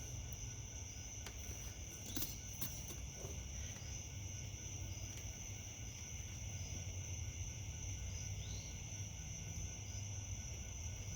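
Steady high-pitched background drone with a low rumble underneath, and a few faint clicks about two seconds in.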